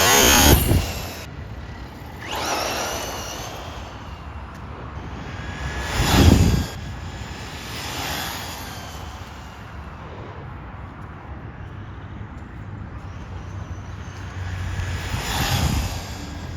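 Electric motor of a brushless RC car whining as the car passes by several times, each pass swelling and fading, the loudest about six seconds in.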